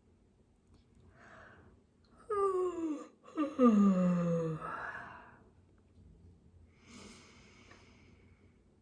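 A man's slow deliberate breathing: an in-breath, then a long, loud voiced sigh on the out-breath that falls in pitch, broken once midway, and a softer breath near the end.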